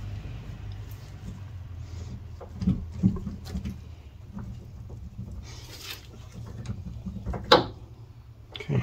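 Scattered light metal knocks and a sharp click as a steel lower steering shaft is handled and set down onto the steering gearbox's splined input shaft, over a low steady hum. Two knocks come about three seconds in; the loudest click is near the end.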